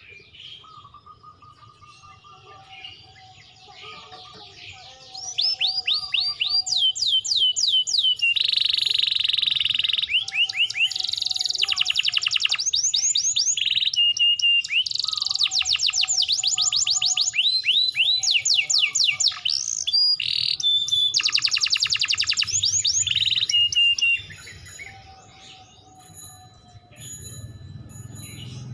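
Domestic canary singing a long song of fast, rapidly repeated trills and rolls, loud from about five seconds in until a few seconds before the end, with quieter twittering before and after.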